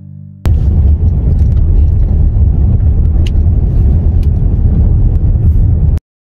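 Loud, steady low rumble of road and wind noise heard from inside a moving car, with a few faint clicks; it starts abruptly about half a second in and cuts off suddenly near the end.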